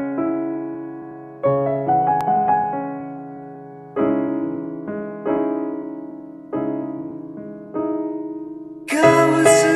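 Slow piano introduction of a karaoke backing track: chords struck and left to fade, one every second or two. About nine seconds in, a fuller, brighter accompaniment joins in.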